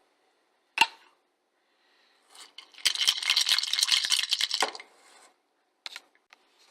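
Hard chunks clinking and clattering into a glass, served 'on the rocks': one sharp clink about a second in, then a couple of seconds of dense rattling, and a few last clicks near the end.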